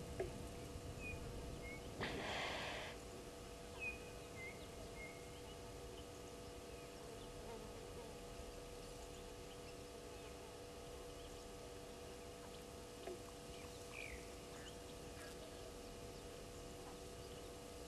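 Quiet outdoor waterhole ambience under a steady hum: a few short, high bird chirps, and a hissing burst lasting about a second some two seconds in.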